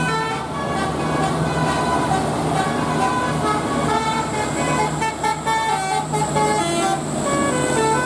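Bus 'telolet' musical air horn playing a quick tune of short notes that step up and down in pitch, over the steady hum of the bus's engine.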